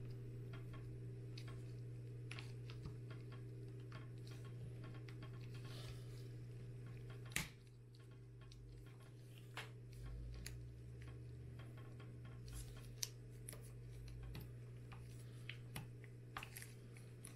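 Faint clicks and rustling of latex-gloved fingers working a plastic pin loose from a plastic binder's moulded frame, with a sharper click about seven seconds in, over a steady low hum.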